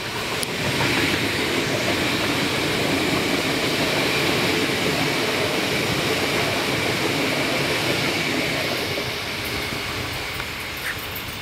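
An Alstom Coradia Continental electric multiple unit passing close at speed: wheels rumbling on the rails with a steady high whine. It grows loud about a second in, then fades over the last few seconds as the train moves away.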